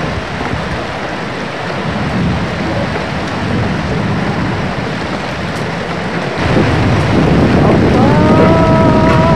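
Heavy rain and wind of a thunderstorm, a dense steady rush that grows louder and deeper about six seconds in. Near the end a long, steady pitched tone starts over the storm.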